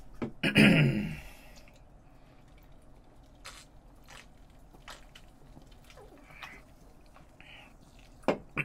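Close-miked eating sounds: quiet chewing and swallowing with scattered small mouth clicks, and sips from a soda can about four seconds in. A brief vocal sound comes just after the start.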